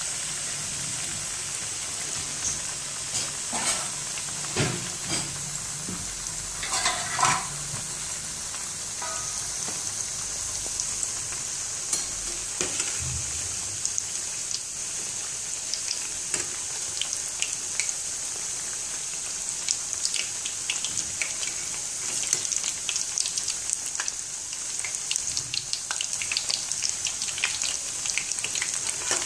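Chakli deep-frying in hot oil in a stainless-steel pan: a steady sizzle with crackling pops, busier in the second half. Occasional knocks and scrapes as a slotted spoon turns them.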